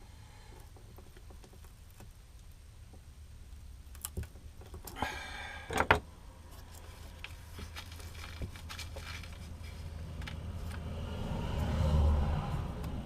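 A few sharp knocks on wood, the loudest about six seconds in, with a brief scrape among them, over a faint low hum. A low rumble swells near the end.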